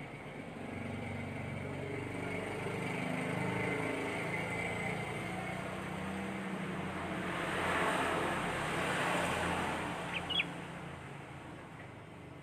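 Engine hum and road noise of a passing motor vehicle, swelling to its loudest about eight seconds in and fading, with two brief high chirps near the end.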